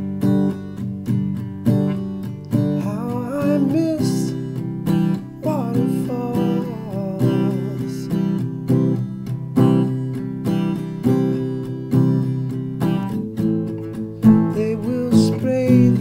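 Acoustic guitar strummed in a steady rhythm of chords, with a man's voice singing a few phrases over it in places.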